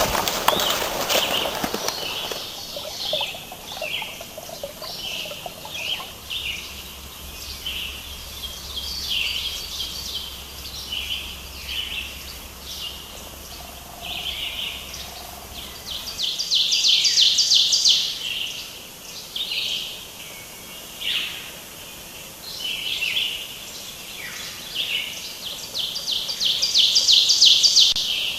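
Birds chirping and calling, with a long rapid trill about 17 seconds in and another near the end. A rustling noise fills the first two seconds.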